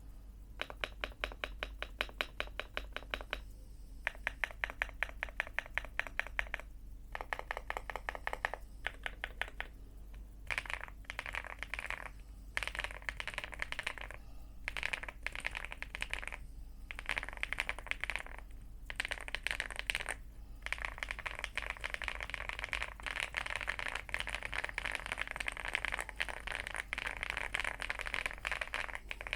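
Typing on a mechanical keyboard: an aluminium-cased Aula Leobog Hi8 with Akko Cream Yellow linear switches and MDA-profile pudding keycaps. About the first ten seconds are quick, even runs of keystrokes. After that the typing gets denser and busier, with short pauses now and then.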